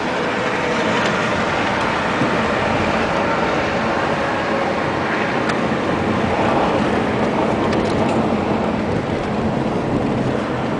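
A vehicle driving off-road: steady engine and rolling noise with a few short knocks and rattles.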